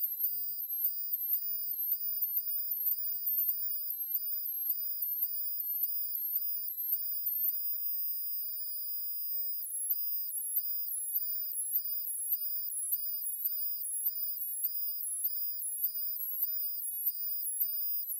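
A thin, high-pitched electronic tone that steps back and forth between two pitches, about twice a second. It holds one pitch for a couple of seconds midway through.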